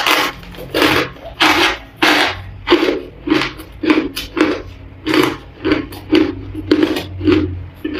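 Crushed ice being chewed close to the microphone: a steady run of loud crunches, about two a second.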